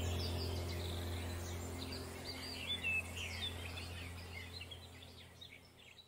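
Small birds chirping and twittering in short, high calls over a low steady hum, the whole fading out toward the end.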